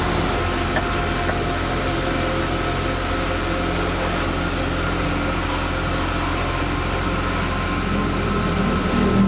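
Steady mechanical hum with a constant hiss and a few held tones: a machine running without pause.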